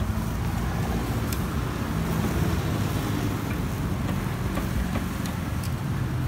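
Steady street traffic noise: motor vehicles running in a continuous low rumble, with a few faint clicks.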